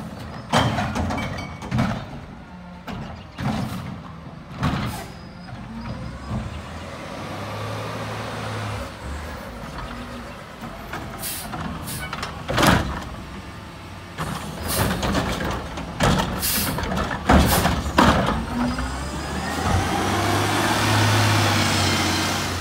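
Front-loader garbage truck with a Curotto-Can automated cart arm at work: a series of sharp clanks and bangs as the arm and lift handle a cart, the loudest about halfway through and again about two-thirds of the way in. Near the end the diesel engine revs up as the truck pulls away past the camera.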